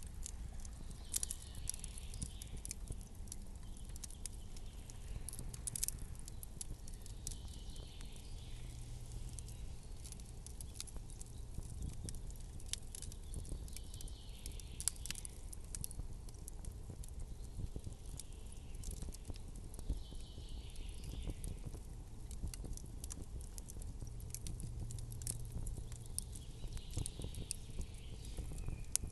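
Campfire crackling, with frequent sharp pops and snaps over a low steady rumble, and a soft hissing swell about every six seconds.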